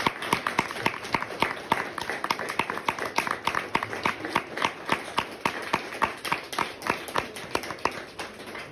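A small audience applauding, many separate hand claps at once, thinning out and dying away near the end.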